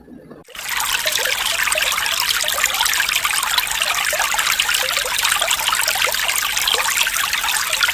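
Water trickling and splashing steadily, starting about half a second in.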